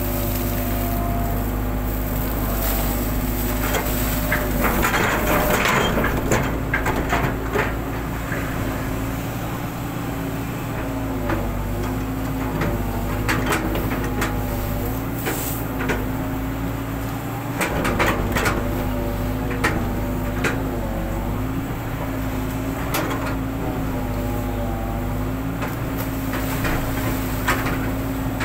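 Hitachi long-reach excavator's diesel engine running steadily, its pitch dipping a little as the hydraulics take load. Repeated clanks and knocks come from the bucket and arm as mud is dumped and the bucket digs into the riverbed, with some water churning.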